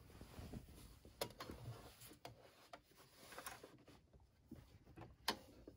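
Near silence with faint rustling and a few light clicks: fabric being folded and lined up under a sewing machine's presser foot.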